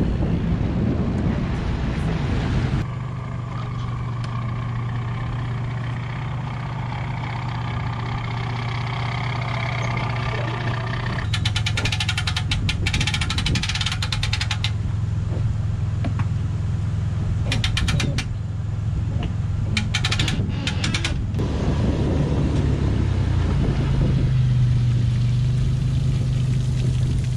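Pickup truck engine idling steadily, with several short bursts of rapid clicking around the middle.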